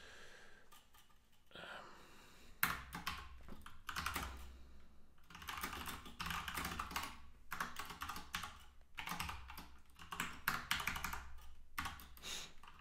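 Typing on a computer keyboard in quick bursts of keystrokes with short pauses between them, getting going about two and a half seconds in.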